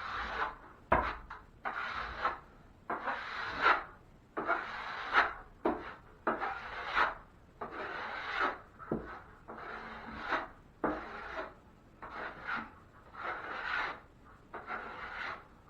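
Drywall knife scraping wet joint compound across a wall patch in repeated strokes, roughly one or two a second, taking off the extra mud and slicking the coat out smooth.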